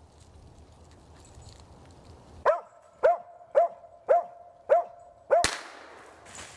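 Kemmer Cur squirrel dog barking treed at a squirrel: six short, evenly spaced barks about half a second apart, starting a couple of seconds in. The last bark is cut by a sudden loud bang with a brief echo.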